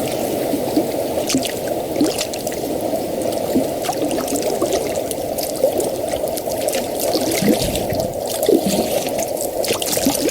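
Running water bubbling and trickling steadily, with small splashes and drips.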